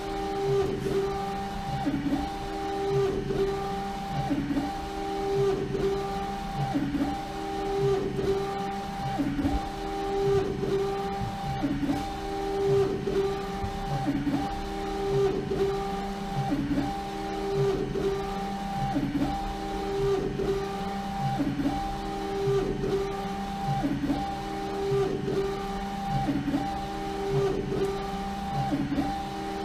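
LogoJet UVx60XL UV printer printing onto a bottle turning in its rotary jig: the print-head carriage shuttles back and forth with a motor whine that rises and falls about once a second.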